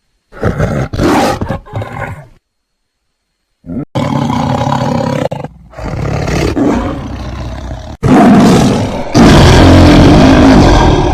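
Big cat (tiger or lion) roaring and growling in separate edited takes: a short roar that fades out by about two seconds, a pause, then nearly unbroken loud roaring from about four seconds on, with sudden cuts between takes. The loudest stretch is near the end.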